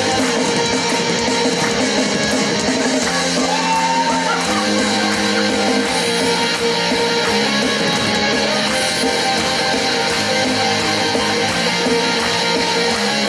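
Instrumental break of a karaoke backing track for a Soviet pop song, with guitar, playing without vocals.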